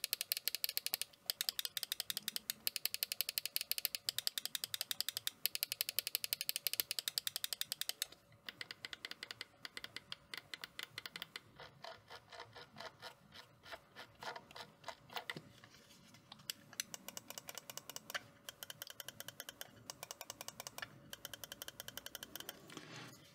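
SteelSeries Prime Mini Wireless gaming mouse buttons being clicked in quick, repeated runs of sharp clicks, several a second. The clicks are louder for about the first eight seconds and softer after that, with short pauses between runs.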